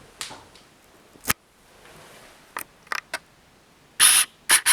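Scattered sharp clicks and short scratchy rustles, with the loudest, longest bursts near the end.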